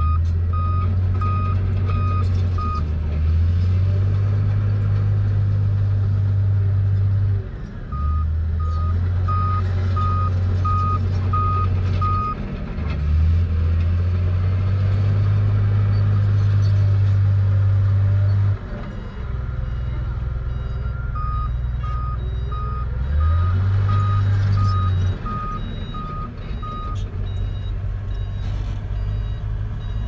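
Heavy diesel earthmoving machinery running, a low engine drone that steps up and down in pitch every few seconds. A backup alarm beeps about twice a second in three runs: at the start, around the middle, and again later on.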